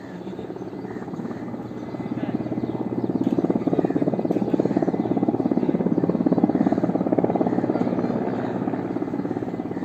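Helicopter passing low overhead: fast, even rotor-blade chop that grows louder over the first few seconds, peaks a little past the middle, then eases slightly.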